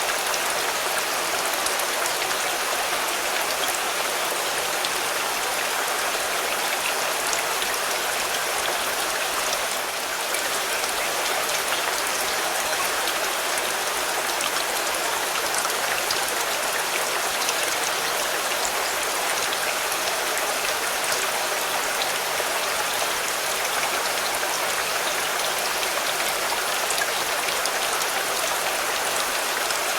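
Steady rain falling on a car, an even hiss of drops with fine scattered patter and no let-up.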